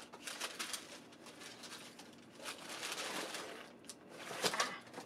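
Rustling and crinkling of cosmetics packaging being handled, uneven and crackly, with a sharper crackle near the end.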